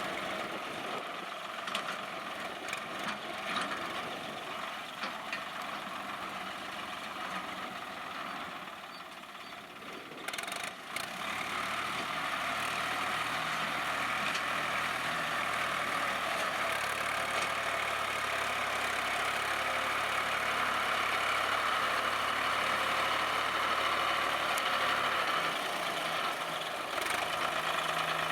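Swaraj 960 FE tractor's diesel engine running, with a short break and a few clicks about ten seconds in, after which a steady low engine note sets in and the sound gets a little louder.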